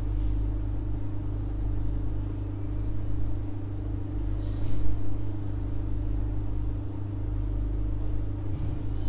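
A steady low hum, with a faint brief rustle about halfway through.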